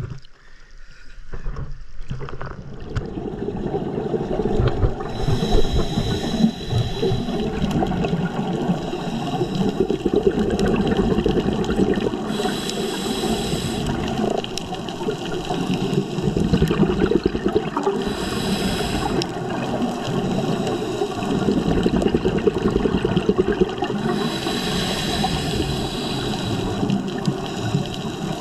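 Underwater water noise on a scuba diver's camera, with the diver's exhaled regulator bubbles swelling up about every six seconds.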